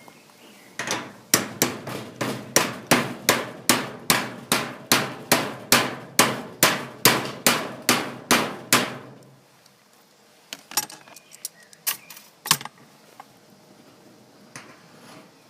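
Rusty brass padlock being struck hard and steadily, about two blows a second for some eight seconds, then a few scattered knocks. The blows are meant to jar its rusted, seized shackle free while the picked core is held open.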